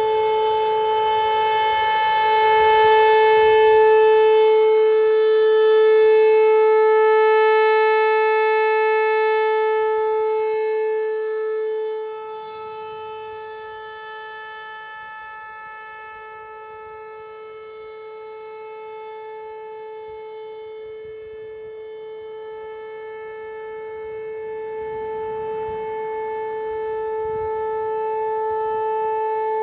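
American Signal T-135 outdoor warning siren sounding a steady single tone for its monthly test. The tone grows fainter about twelve seconds in and swells back toward the end as the rotating horn turns away and back.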